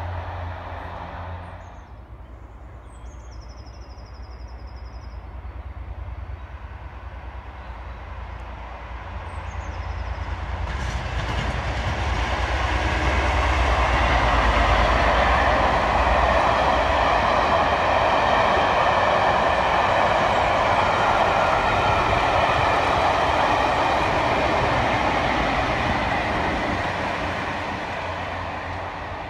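Diesel-hauled charter train of coaches, top-and-tailed by Class 57 locomotives, passing by. Its engine and wheel noise builds, stays loud for about fifteen seconds, then fades as it draws away.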